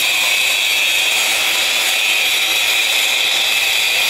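Wall chaser cutting channels for electrical conduit into a wall, with a dust-extraction hose attached. It runs steadily, and the cutting gives a loud high whine.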